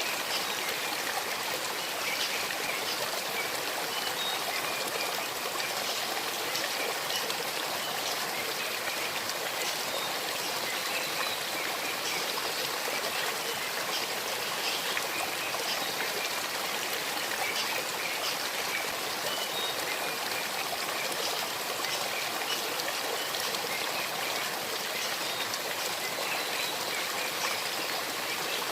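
A small stream babbling and trickling over stones, a steady, even rush of flowing water with fine bubbling detail.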